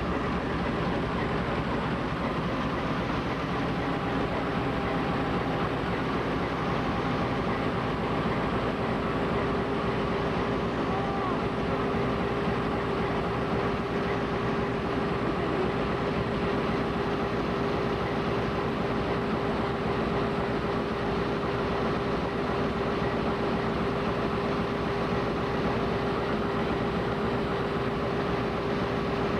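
GE U20C diesel-electric locomotive's 12-cylinder diesel engine running steadily, a dense mechanical drone with a steady whine that grows stronger about ten seconds in.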